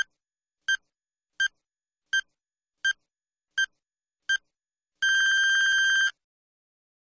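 Countdown timer sound effect: a short high-pitched electronic beep repeated at a steady pace of about three every two seconds, seven times, then one long beep of about a second near the end, signalling that the time is up.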